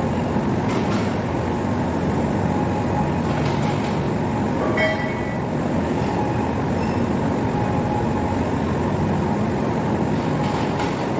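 Heavy machinery running with a steady rumble and a faint constant whine, and a brief high metallic ring about five seconds in.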